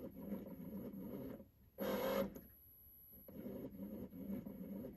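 Honda Civic i-SHIFT clutch actuator cycling while a scanner runs the automatic clutch fluid air-bleeding routine. About a second and a half of buzzing is followed by a short louder burst about two seconds in, a quiet gap, then buzzing again. The system is working the clutch hydraulics to purge air.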